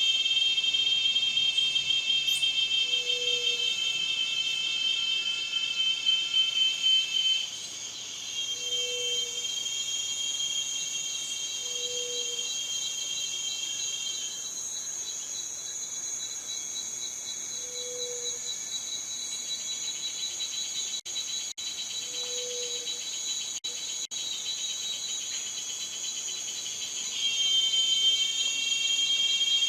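Cicadas singing: a continuous high-pitched shrill buzz that shifts in pitch and level about a third of the way in, and swells louder again near the end.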